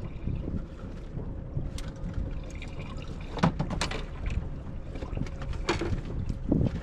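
Water lapping against a small fiberglass boat's hull, with a steady low wind rumble on the microphone. A few sharp clicks and knocks come from fishing tackle being handled on the deck, about halfway through and again near the end.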